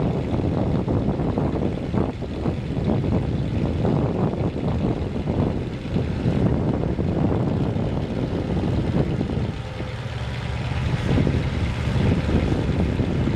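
Engines running steadily as a John Deere 120C LC track hoe tows a stuck Jeep CJ through thick mud, dipping briefly about ten seconds in.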